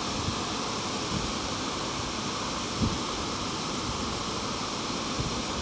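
Steady rushing of flowing water, with a few soft low thumps, the loudest about three seconds in.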